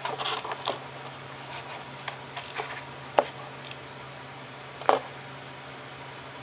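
Small plastic clicks and taps of a clevis on a carbon fibre control rod being handled and hooked onto a servo arm on a foam RC plane, with two sharper clicks about three and five seconds in.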